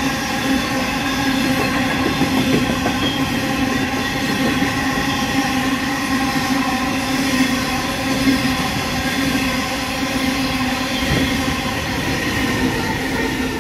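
Coal hopper wagons of a freight train rolling past close by: continuous steel wheel-on-rail noise carrying several steady ringing tones, with occasional clicks as wheels cross rail joints.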